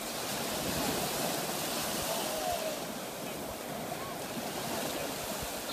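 Surf breaking and washing over shallow water at the shoreline, a steady rushing noise.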